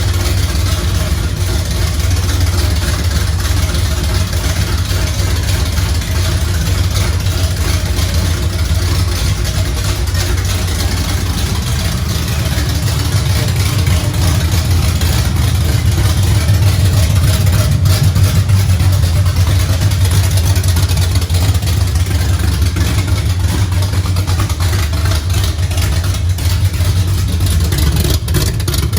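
Built Chevrolet 305 small-block V8 with a big race cam, idling loud, rowdy and throaty with no exhaust system fitted, swelling slightly louder partway through.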